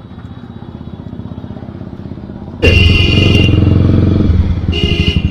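Motorcycle engine running, its fine even pulsing quiet at first and slowly growing louder. About halfway in the sound jumps suddenly to the loud sound of the motorcycle riding in street traffic. A shrill steady tone sounds twice, once at the jump and again near the end.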